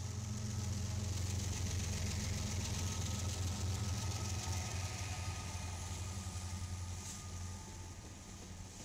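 Union Pacific diesel-electric freight locomotives passing close by, their engines running with a deep steady drone over a hiss of wheels on rail. The drone eases off near the end as the last locomotive goes by.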